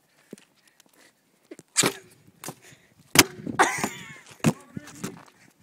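Long inflated balloons smacking in a balloon fight: sharp hits, the loudest about three seconds in, followed by a girl's squealing laughter.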